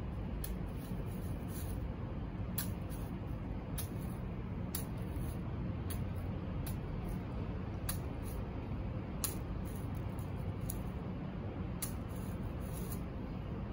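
Outdoor ambience: a steady low rumble of background noise, with faint irregular high ticks and rustles scattered through it.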